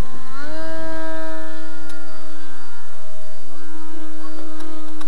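Electric RC model airplane's motor and propeller whining in flight. The pitch rises in the first half-second, then holds steady.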